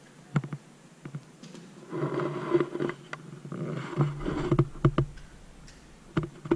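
Scattered knocks, clicks and scuffs of people clambering over cave rock, loudest in two rough stretches a couple of seconds in and again around four seconds in.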